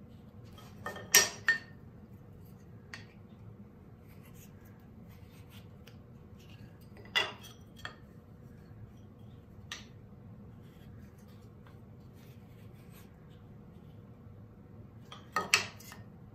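Sharp, short clacks of wooden frame stock and hand tools knocking together and being set down on a wooden workbench: a pair about a second in, a single clack in the middle, and a quick pair near the end.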